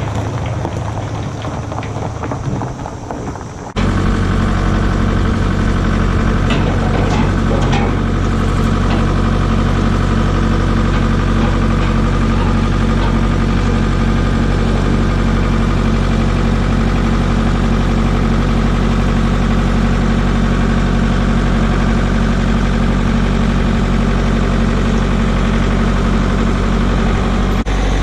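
Engine running steadily at a constant speed, starting abruptly about four seconds in.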